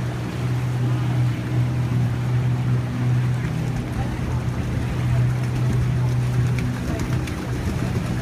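Transportation boat's engine running under way, a steady low drone over a constant rushing noise of water and air.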